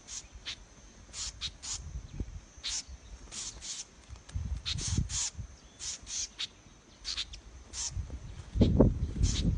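Small birds giving repeated short, sharp alarm chirps, typical of birds mobbing a snake. Low rumbling underneath grows loudest near the end.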